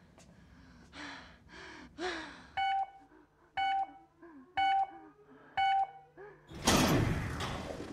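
Digital countdown timer beeping four times, once a second, as it runs down to zero, over a person's panicked gasping breaths. As it hits zero, a loud sudden rushing burst of noise cuts in and slowly dies away.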